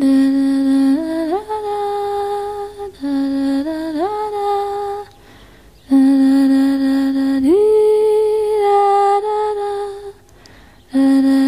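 A single voice humming a slow repeated two-note phrase: each phrase holds a low note, then slides up to a higher note and holds it. The humming breaks off briefly twice, about five and about ten seconds in.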